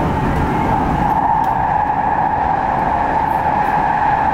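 Passenger train running at speed, heard from inside the carriage: a low rumble with a steady whine held throughout.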